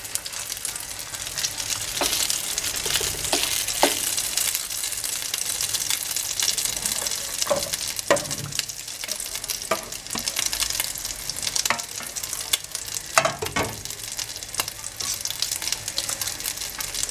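A rice-and-egg patty frying in hot oil in a terracotta cazuela: a steady sizzle, with sharp pops scattered through it as the rice spits.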